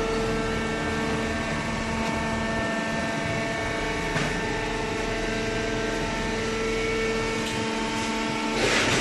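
Hydraulic baler running: a steady machine hum with a single click about four seconds in and a burst of hiss near the end.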